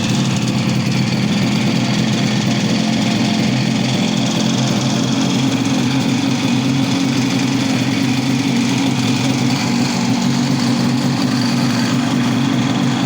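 Buran snowmobile's two-stroke engine running steadily.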